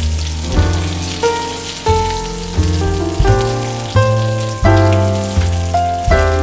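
Background music: a melody with a strong bass line, notes changing in an even beat about every two-thirds of a second, over a steady faint hiss.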